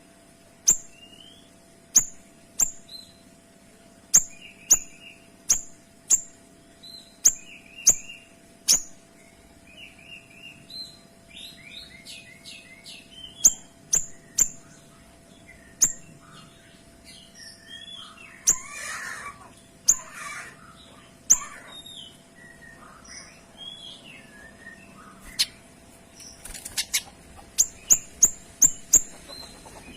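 A kinoy songbird singing in a long run of sharp, clear, piercing notes, the rapid 'shots' prized by Indonesian bird-keepers. The notes repeat about once or twice a second, with softer chirping and twittering between them. The song turns busier and more jumbled midway and ends in a quick burst of sharp notes.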